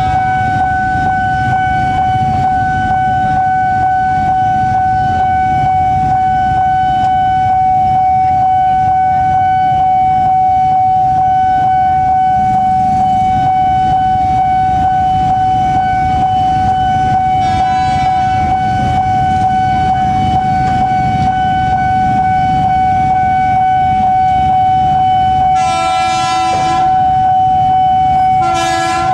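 Level-crossing warning alarm sounding a continuous steady tone over a low rumble, while an approaching train sounds its horn: a short blast about two-thirds of the way in, a longer, louder blast of about a second near the end, and a brief one just after.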